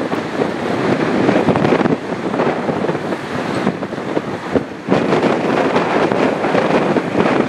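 Gusty wind buffeting the microphone: a loud rushing noise that swells and dips with each gust and drops briefly about five seconds in.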